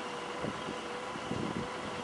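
Memorial siren holding one steady tone over a background of wind and traffic noise, sounded for the moment of silence on the earthquake anniversary. A couple of soft low knocks come about half a second and a second and a half in.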